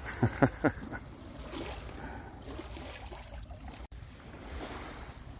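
Outdoor seaside ambience: the gentle wash of a calm sea under a steady low rumble. In the first second, three short, quick sounds fall sharply in pitch.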